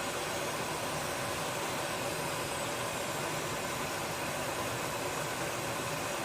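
Steady hiss of kitchen gas escaping, an even rush with no change in level.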